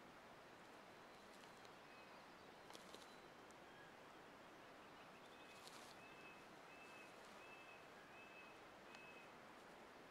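Near silence: a faint, steady outdoor hiss. About halfway in, a faint bird call of about five short, even whistled notes, with a few faint ticks.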